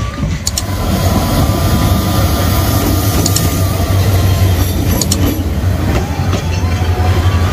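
A diesel-hauled Bangladesh Railway passenger train passing close by: a steady, loud rumble of the locomotive and coaches rolling over the rails, with a couple of sharp clacks.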